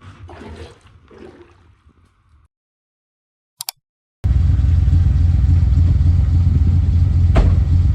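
Faint clattering, then a short gap of silence, then from about four seconds in a car's engine running with a loud, steady low rumble.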